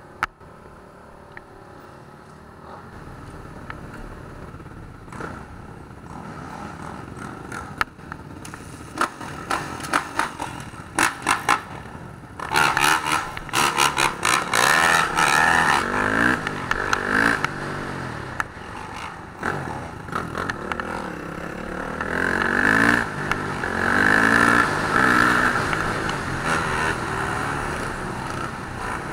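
Motorcycle engines running and revving, growing louder, with repeated rises and falls in pitch from about midway and again near the end. A run of sharp clattering knocks comes about a third of the way in.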